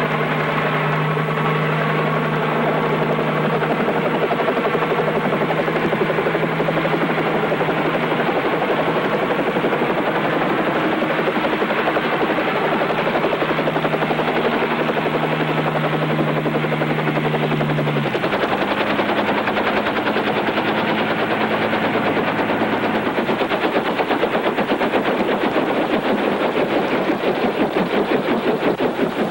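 Bell 47 helicopter's piston engine and rotor running with a rapid, steady chop; the engine note shifts lower about eighteen seconds in.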